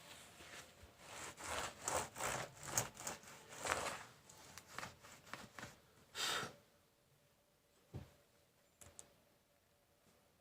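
Handling noise from a laptop being worked on: several seconds of scraping and rubbing against a hard surface, then two soft clicks.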